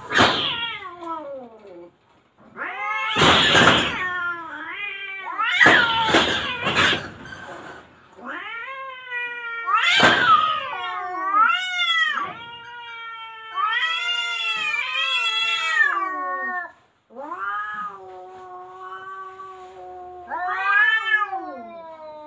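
Two cats threatening each other: harsh hissing and spitting in the first few seconds, then long, drawn-out, wavering yowls (caterwauling) that rise and fall in pitch. These are the aggressive warning calls of a cat standoff.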